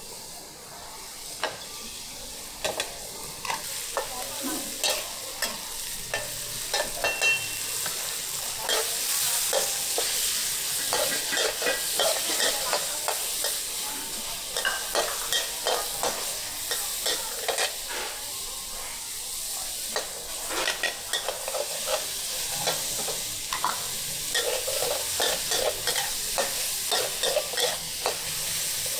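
Food frying in a hot wok with a steady sizzle, stirred and tossed with a metal spatula that scrapes and clanks against the pan many times.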